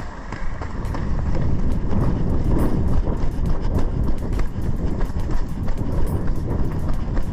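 Running footsteps striking pavement in a quick, even rhythm, about three a second, over a steady rumble of wind on the microphone.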